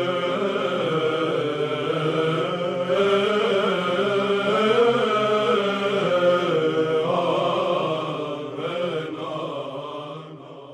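Chanted hymn: voices singing a slow melody over a steady held low note, fading out over the last few seconds.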